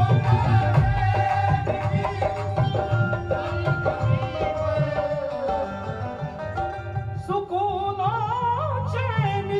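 Ghazal music: tabla drumming under steady held melodic tones, joined about seven seconds in by a singer's wavering held vocal line.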